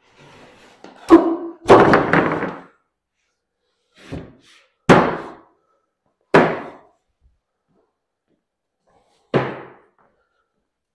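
A series of heavy wooden thuds and knocks as workbench parts are handled: about six separate impacts spread unevenly, the loudest two close together a little over a second in, each dying away quickly.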